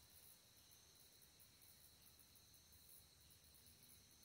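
Near silence, with a faint, steady high-pitched chirring of insects.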